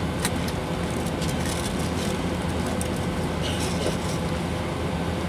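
Airbus A321 cabin noise during taxi, heard from a window seat over the wing: the jet engines running at low thrust as a steady low hum with a faint steady tone, and scattered light clicks on top.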